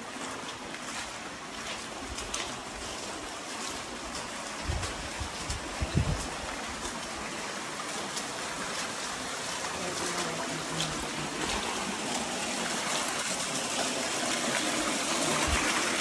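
Small creek running over rocks and down a little waterfall, a steady rushing trickle that grows gradually louder, with a few low bumps about five to six seconds in.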